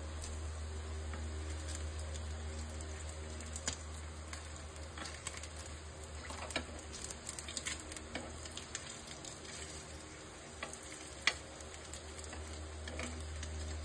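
Eggs and sliced meat sizzling in a nonstick multi-section frying pan, over a steady low hum. From about four seconds in, a metal utensil scrapes and taps against the pan as the meat slices are turned.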